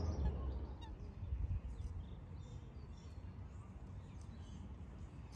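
Small birds chirping faintly over a steady low outdoor rumble, which eases over the first second or two.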